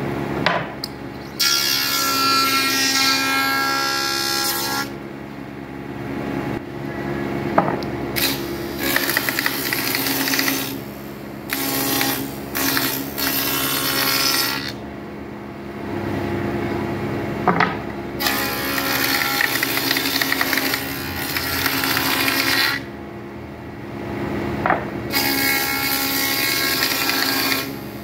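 Spindle moulder (wood shaper) running with a steady motor hum, cutting the edges of wooden door panels in loud passes as each panel is pushed along the fence. There are about five cutting passes of a few seconds each, with the cutter spinning free between them.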